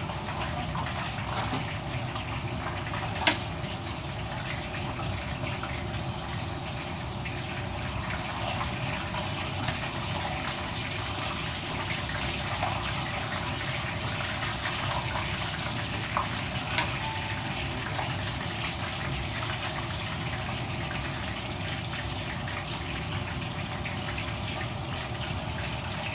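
Steady rushing background noise, with a few sharp clicks and ticks of a carving knife against a metal tray as a roast duck is cut up.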